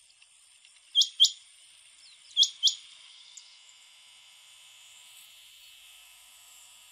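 Rain quail calling: two pairs of short, sharp, high notes about a second and a half apart, then only a faint steady background hiss.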